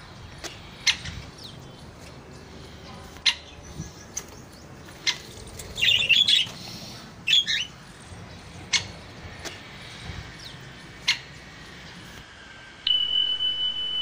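Great spotted woodpecker giving short, sharp single calls every second or two, with a quick run of them about six seconds in. Near the end a steady high tone begins.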